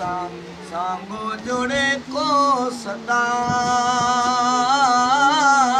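A man's voice chanting a devotional recitation with no instruments: short melodic phrases, then from about three seconds in one long held note that wavers in ornamented turns.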